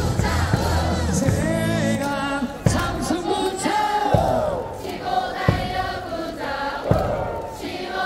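KBO baseball cheering-section crowd singing a cheer song in unison along with loudspeaker music. After about two and a half seconds the backing music drops back and the crowd chants over sharp thumps spaced about a second and a half apart.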